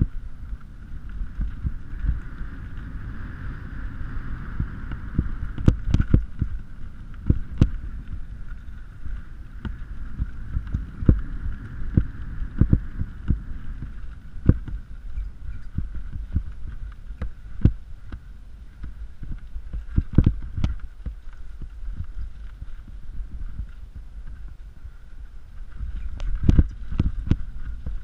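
Mountain bike riding fast down a dirt and gravel forest trail, heard from a GoPro on the bike or rider: a continuous low rumble of tyres and air rush, broken by many sharp rattles and knocks as the bike hits bumps and roots. The densest run of knocks comes near the end.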